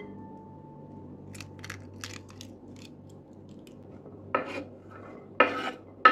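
Silicone spatula scraping and knocking against a glass mixing bowl of cooked rice, with the glass ringing briefly at each stroke. A few faint clicks come first; the louder scrapes start about four seconds in.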